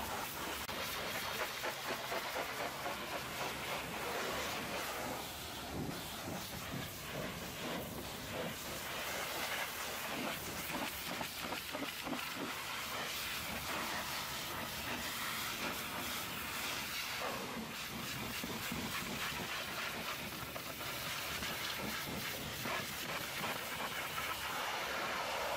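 Hot-water pressure washer jet hissing steadily as it blasts grease off a semi truck's chassis, rear mudguard and tail light, the spray spattering on the metal and plastic.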